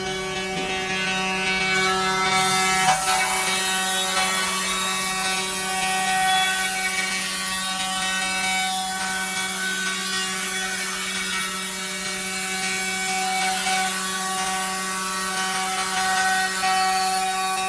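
Six-sided CNC woodworking drilling machine running: a steady motor hum and whine with several held tones, some of which come and go as the machine works.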